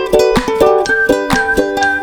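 Background music: upbeat strummed ukulele with plucked chords in a steady rhythm and a high sustained melody line.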